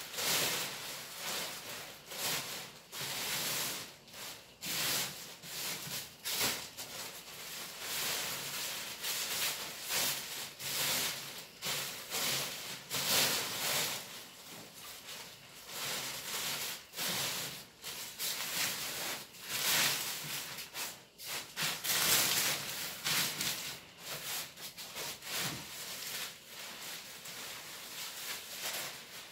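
Paraglider canopy fabric rustling as it is handled and smoothed out by hand, in irregular swishes that come and go.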